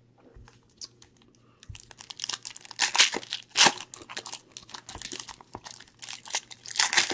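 Foil wrapper of a Prism basketball trading-card pack crinkling and tearing as it is opened by hand. Faint clicks at first, then dense crackling from about two seconds in, loudest about a second later and again near the end.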